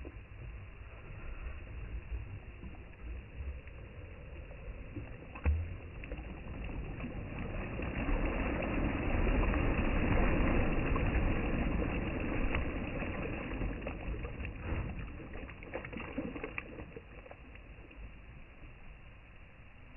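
Sea waves washing in: a noisy rush that swells to a peak midway and then eases off, with a few sharp clicks scattered through it.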